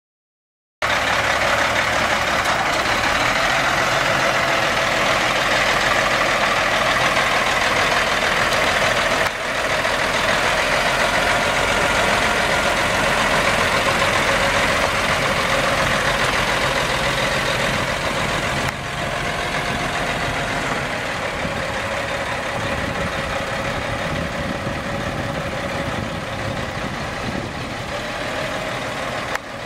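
Caterpillar C12 diesel engine of a Peterbilt 377 semi truck idling steadily. The sound starts suddenly about a second in and breaks briefly twice, near 9 and 19 seconds in.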